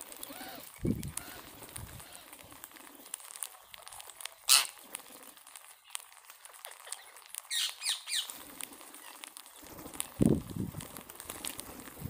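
A flock of rose-ringed parakeets feeding on scattered grain: a steady patter of small clicks from beaks working the seed, with a sharp call about four and a half seconds in and a few shrill calls around eight seconds. Low thumps, likely wingbeats, come about a second in and again near the end.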